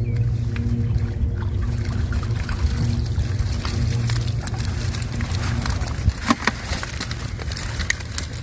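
Boat engine running with a steady low hum that swells and fades, with a few sharp clicks about six seconds in.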